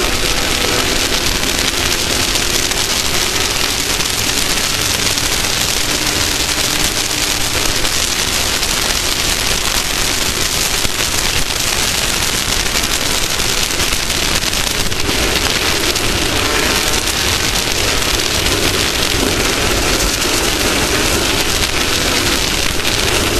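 Off-road race vehicle running at speed: a loud, steady rush of wind and terrain noise with the engine faintly audible underneath, its pitch shifting now and then.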